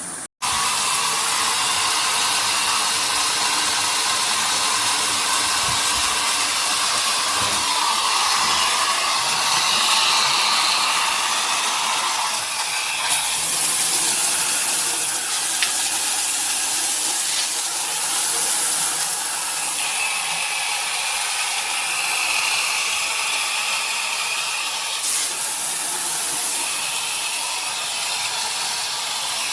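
Handheld shower head spraying water in a steady, loud hiss that starts abruptly about half a second in.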